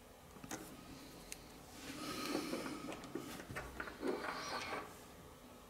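Bench handling sounds of watch work: a few light clicks, then two spells of rustling and scraping as the watch movement in its metal movement holder is handled on the bench mat.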